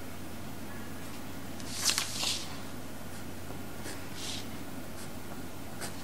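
Pencil drawing on paper: a few short scratchy strokes, the strongest about two seconds in and another about four seconds in, over a steady low hum.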